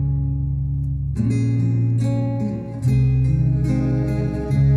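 Acoustic guitar playing sustained strummed chords, with the chord changing about every second and a half.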